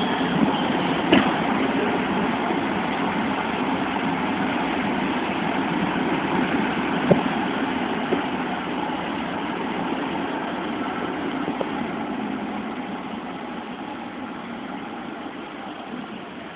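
Departing passenger train rolling away on the rails, a steady rumble with a couple of sharp wheel clicks, fading over the last few seconds as it pulls out.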